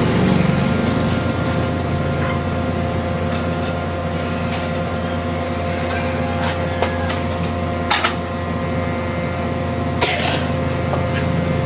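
A machine running with a steady low hum and a few fixed tones over it, with a few sharp knocks, the loudest about ten seconds in.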